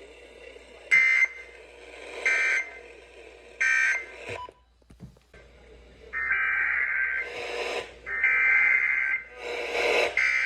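Emergency Alert System SAME digital data bursts off a broadcast receiver. Three short bursts about a second apart mark the end-of-message code of one warning. After a brief gap come several longer bursts, each about a second long: the header of the next warning.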